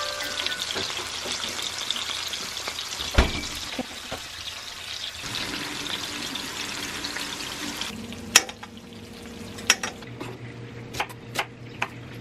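Pork steaks and garlic sizzling in hot oil in a frying pan, with a single knock about three seconds in. After about eight seconds the sizzle stops and a knife cuts an onion on a wooden cutting board in a few sharp taps.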